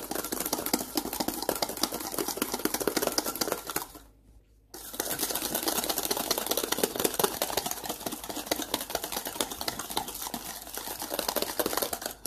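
Hand wire whisk beating a wet butter, sugar and egg batter in a stainless steel bowl: a fast, steady clatter of wires scraping and ticking against the metal. It stops briefly about four seconds in, then carries on.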